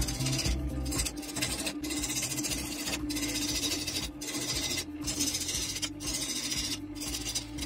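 Wood lathe running with a bowl gouge cutting a spinning Chinese elm blank: a steady motor hum under the rasping hiss of the cut. The cut breaks off briefly about once a second.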